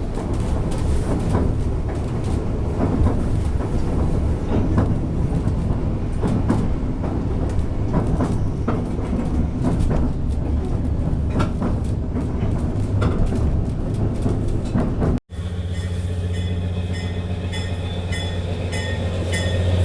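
Narrow-gauge White Pass railroad passenger train running, with a rumbling ride and irregular clicks and rattles from the wheels and car. About three-quarters of the way through, the sound cuts out suddenly and is replaced by a steady low drone with evenly spaced ticks.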